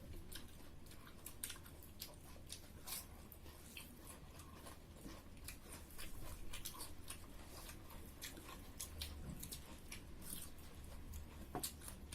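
Close-up chewing and eating sounds of people eating pork curry with rice: irregular small wet smacks and clicks of mouths and food.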